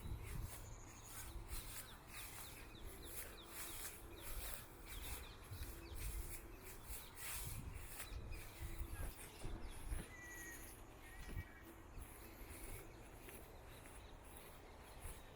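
Outdoor nature ambience: a low wind-like rumble with light crackling, and a few short bird chirps about ten seconds in.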